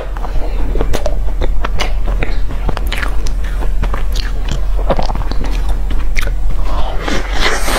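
Close-up mouth sounds of a person biting into and chewing a rolled egg pancake: a steady run of short, sharp clicks and smacks.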